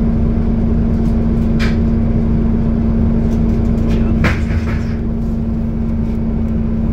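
Scania city bus heard from inside the cabin while it drives: a steady engine and drive hum over a low rumble. Two brief sharper noises cut through, a faint one about a second and a half in and a louder one about four seconds in.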